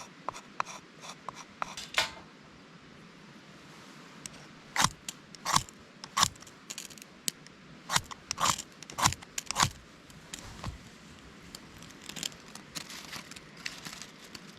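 A series of irregular sharp clicks and clacks, like hard objects being handled and knocked together, the loudest coming thick and fast in the middle.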